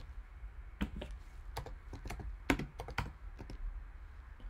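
Typing on a computer keyboard: a run of irregular, separate key clicks as a name is entered into a web search box.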